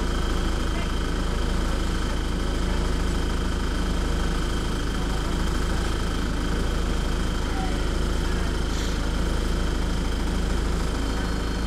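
Alexander Dennis Dart single-deck bus's diesel engine idling steadily with the bus standing still, heard from inside the saloon as a low rumble with a thin steady high whine over it.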